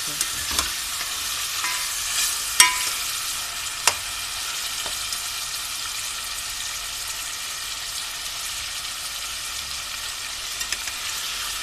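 Mutton pieces sizzling in hot ghee in an aluminium pot, seared over high heat while being stirred with a spatula: a steady frying hiss with a few sharp knocks and scrapes of the spatula against the pot, the loudest about two and a half seconds in.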